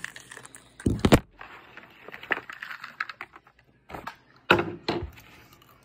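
Handling noise close to the microphone: sharp knocks and crackles, a loud double knock about a second in and another cluster a little past four seconds.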